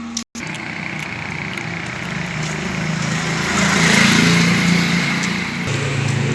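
A small vehicle engine running steadily, with a swell of louder engine and road noise that rises and falls about four seconds in. The sound drops out for a moment near the start.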